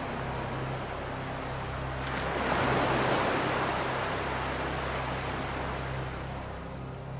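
A steady rushing noise over a low, constant hum, swelling about two and a half seconds in and easing back down.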